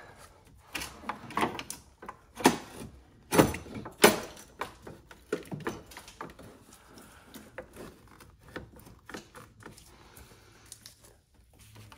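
Knocks, clunks and rubbing of hand work in a car's engine bay as the old coolant pipe is worked around the surrounding parts. A few louder knocks come in the first four seconds, then faint scattered clicks.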